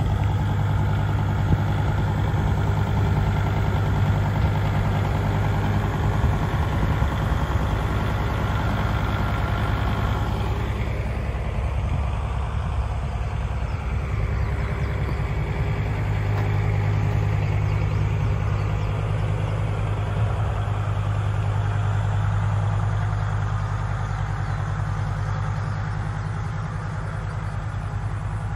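A tractor's diesel engine idling steadily, with a strong low hum. A rougher, higher layer of engine noise fades out about ten seconds in.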